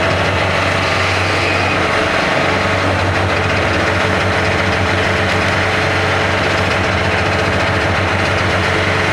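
Type 87 self-propelled anti-aircraft gun's engine idling steadily with an even low hum.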